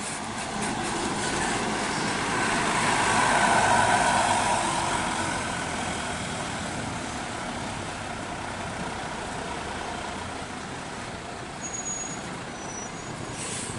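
Intercity coach's engine running as the bus drives slowly past, swelling to its loudest about four seconds in as it comes closest, then easing to a steady hum as it moves away.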